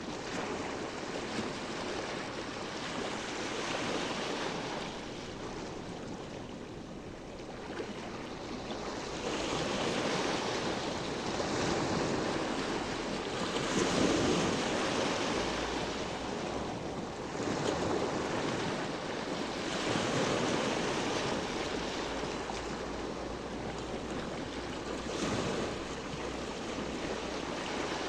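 Sea waves washing in, a noisy wash that swells and ebbs every few seconds.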